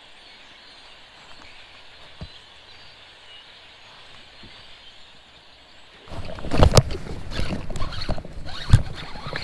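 A faint, steady outdoor hiss. About six seconds in it gives way to loud, close knocking and rustling from a fishing rod and baitcasting reel being handled right at the microphone, with two sharp knocks standing out.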